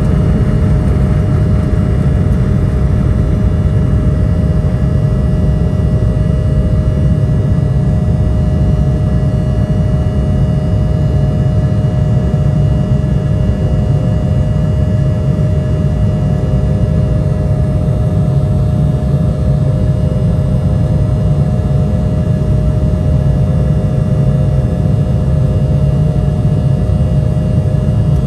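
Cabin noise of an Embraer E170's twin GE CF34-8E turbofans at takeoff thrust, heard from inside the cabin during the end of the takeoff roll and the initial climb. It is a steady, loud low rumble with several steady whining tones above it.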